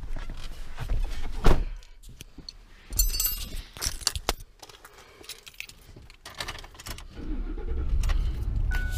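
Keys jangling and clicking inside a pickup truck's cab, then from about seven seconds in a steady low engine rumble as the truck runs, with a brief electronic chime near the end.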